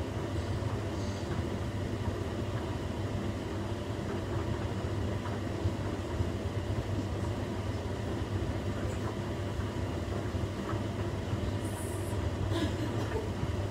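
Washing machine running, a steady low rumble from the turning drum with a few faint clicks and knocks.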